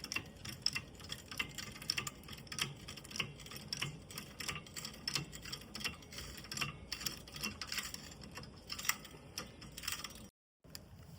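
Car jack working under a car as it is jacked up: rapid, irregular metallic clicking, several clicks a second, that cuts off suddenly about ten seconds in.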